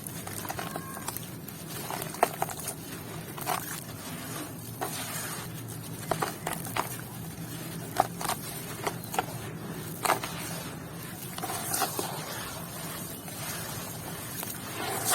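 Wet sand and red dirt being handled and crumbled, with irregular sharp clicks and taps of small stones knocking together.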